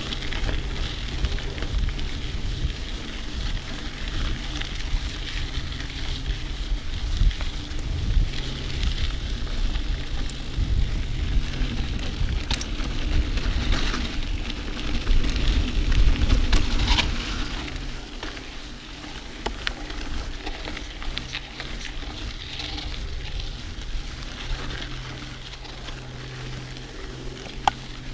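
Mountain bike ridden along a dirt cross-country trail: continuous crackling tyre noise over the ground, scattered clicks and rattles from the bike, and a low rumble. It gets quieter about two-thirds of the way through.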